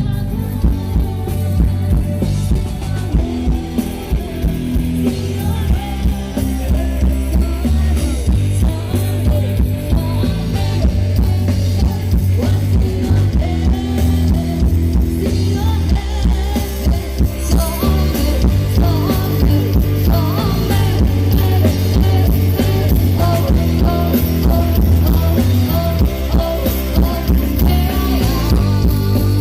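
Rock music with drum kit, bass and electric guitar, and singing over it.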